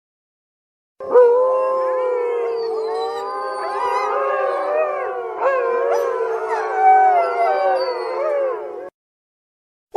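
A pack of wolves howling together in chorus, many voices overlapping and gliding up and down in pitch. It starts about a second in and cuts off abruptly near the end.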